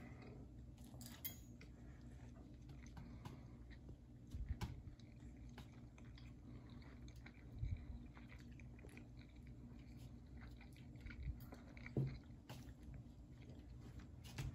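A person chewing a mouthful of soft scrambled egg, faintly, with a few short knocks of a metal fork on a plate about four, eight and twelve seconds in.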